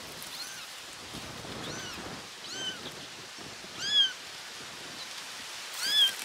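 Abandoned kitten meowing: about five short, high cries, each rising and falling in pitch, the last two loudest.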